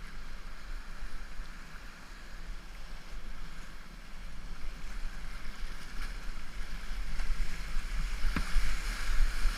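Whitewater rapids rushing around a kayak, heard from a camera on the boat. The rush grows louder toward the end, over a low rumble of water and wind buffeting the microphone. There is one sharp knock about eight seconds in.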